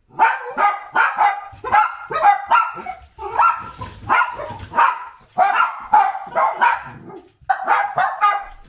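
Miniature dachshund barking repeatedly, sharp barks coming two or three a second in short runs, with a brief pause about seven seconds in.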